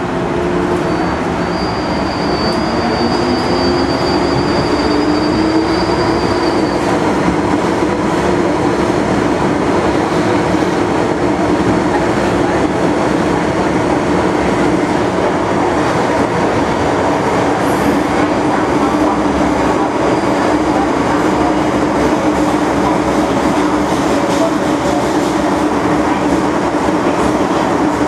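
MTR M-Train electric multiple unit running in a subway tunnel: steady rumble of wheels on rails, with a motor whine that rises in pitch over the first few seconds as the train picks up speed.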